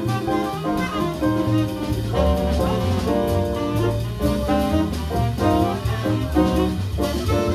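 A small jazz band playing live: a keyboard and a drum kit with cymbals, with held melody notes over a walking low line.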